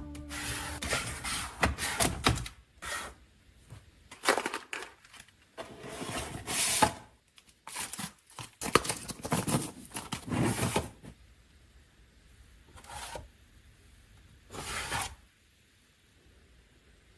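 Handling noises: a run of rustling and scraping in irregular bursts, each up to about a second long, dying away near the end. Background music ends in the first two seconds.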